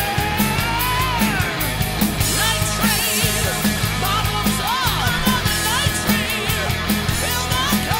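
Hard rock recording: a sung lead vocal with high, sliding and wavering notes over electric guitars and a steady drum beat.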